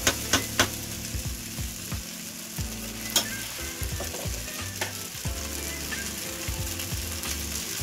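Fried rice sizzling in a hot, oiled non-stick kadai, a steady hiss. A few sharp knocks of the spatula stirring against the pan in the first second, and one more about three seconds in.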